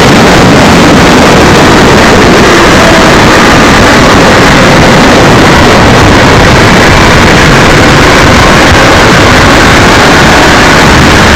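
Motorcycle riding noise picked up by a bike-mounted camera: loud, distorted wind rush over the engine, with a faint engine note drifting up and down.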